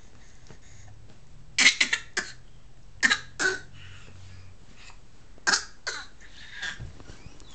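Baby laughing in short, raspy coughs that sound like coughing or throat clearing. It comes in three quick runs of two to four hacks each, about a second and a half apart.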